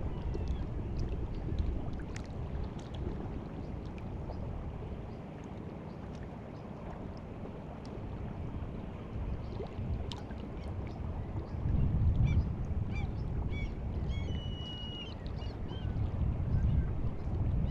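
Sea water lapping and washing at the shore on a rising tide, a low uneven wash that swells about twelve seconds in. Birds call with short, sharp notes in the second half, one held briefly.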